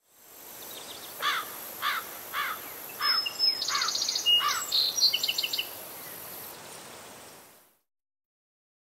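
Birds singing over a steady outdoor hiss: a run of about six repeated swooping notes roughly half a second apart, joined midway by higher twittering trills. The ambience fades in at the start and fades out near the end.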